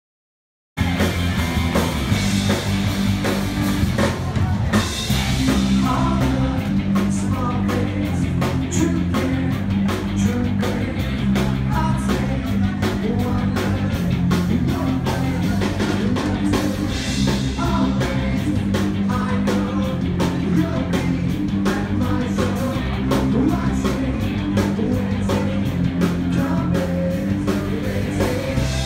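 Band playing rock music with a singer, drum kit and guitar, cutting in suddenly about a second in after a moment of silence.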